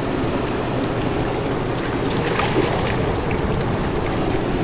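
Steady rushing of river water pouring from a dam's hydroelectric outflow, an even roar with no breaks.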